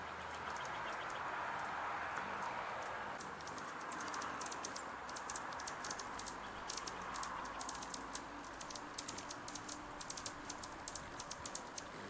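Red-breasted sapsucker tapping at tree bark with its bill: many light, quick taps in irregular runs, starting about three seconds in. A steady hiss runs underneath.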